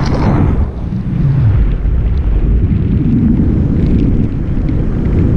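Wind buffeting the microphone of a camera on a paraglider in flight: a loud, steady low rumble.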